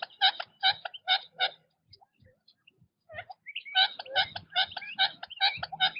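Quail giving short, repeated chattering call notes: a run of about five notes, a pause of nearly two seconds, then a quicker, denser run of notes.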